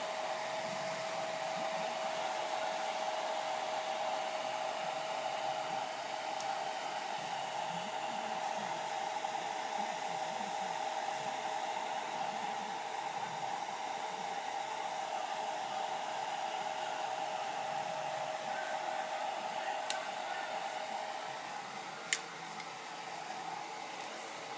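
Hair dryer blowing steadily with a whining tone. About twenty seconds in the tone fades and the sound drops a little, and a sharp click follows about a second later.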